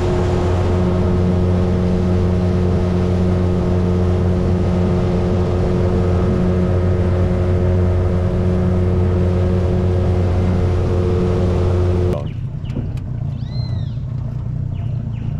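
Boat outboard motor running steadily at constant speed. About twelve seconds in it cuts off abruptly, leaving quieter background with a couple of brief high whistled notes.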